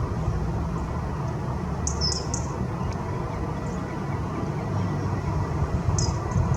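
Short, high-pitched bird chirps, a small cluster about two seconds in and another near the end, over a steady low rumble.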